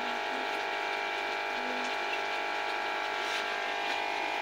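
Steady machine hum with several held tones, unchanging in level.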